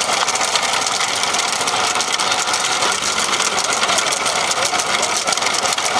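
A motor vehicle's engine running steadily and close, with a fast even chatter.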